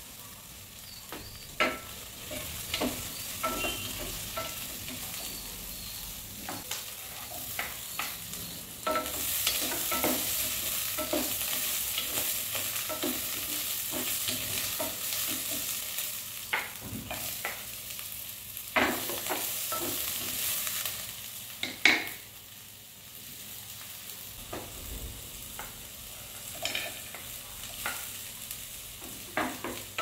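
Onions frying and sizzling in a pot while a wooden spatula stirs them, knocking and scraping against the pot. The sizzle grows louder about nine seconds in and drops back after a sharp knock a little past twenty seconds.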